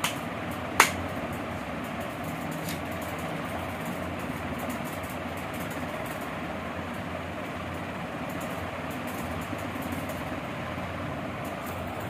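Steady low background noise, with a sharp click just under a second in and a fainter one a couple of seconds later.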